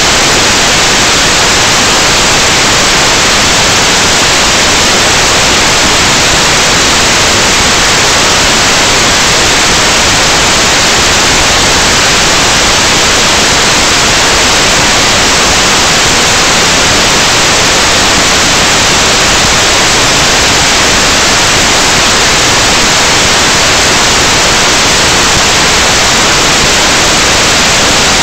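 Loud, steady static hiss with no tones or changes: the empty audio channel of an analog FPV video receiver.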